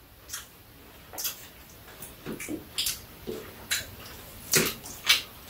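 Metal spoon and chopsticks clinking and tapping against bowls while eating, about ten light, scattered clicks.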